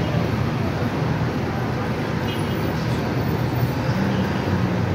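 Steady road traffic noise with vehicle engines running close by, a low engine hum rising and falling, over faint voices of people in the street.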